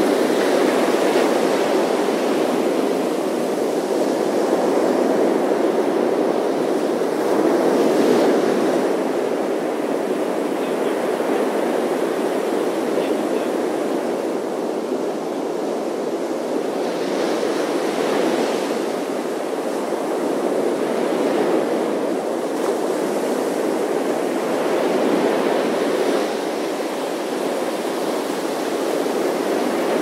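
Ocean surf breaking on a sandy beach: a continuous rushing wash that swells as each wave breaks, with brighter hissing surges of foam every several seconds.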